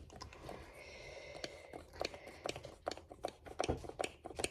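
Faint, quick clicks and sticky crackles from a shampoo bottle being squeezed and shampoo dispensed into a small jar. The clicks are irregular at first and come about three or four a second in the second half.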